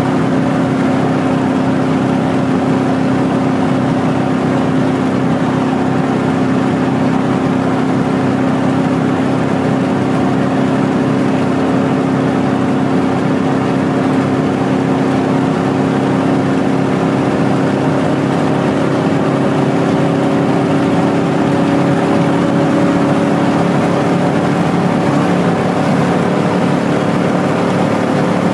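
Chevrolet Silverado's 4.8-litre V8 through a loud aftermarket exhaust, heard from inside the cab, pulling hard at high speed, with wind and tyre noise beneath. The engine note climbs slowly and steadily as the truck accelerates toward 120 mph.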